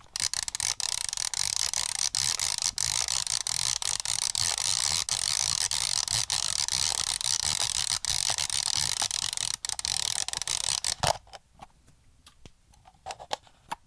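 Kodak Ektar H35N's rewind lever being turned, a fast steady ratcheting clicking as the exposed film is wound back into its canister. The clicking stops abruptly about eleven seconds in, followed by a few faint clicks.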